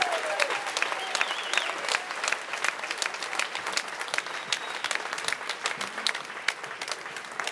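Audience in a full hall applauding at the end of a song, the clapping slowly dying down. A held note from the band slides down and stops in the first half second.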